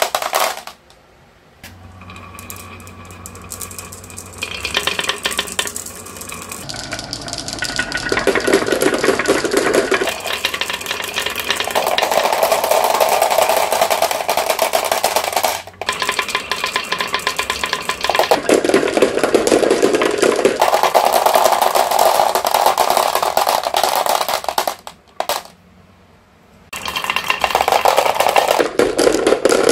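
Glass marbles rolling and clattering down wooden and plastic marble-run tracks, a dense stream of rapid clicks and rolling rumble. It drops out briefly about a second in and again near the end.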